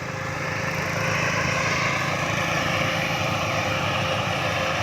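Engine of a rice paddy machine running steadily, building up a little over the first second and then holding an even pitch.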